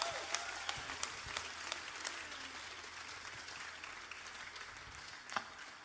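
Concert audience applauding, the clapping thinning out and dying away gradually.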